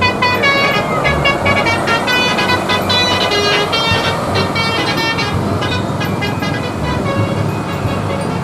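A multi-tone telolet horn on a truck or bus playing a rapid melody of short, bright notes, over the rumble of passing traffic.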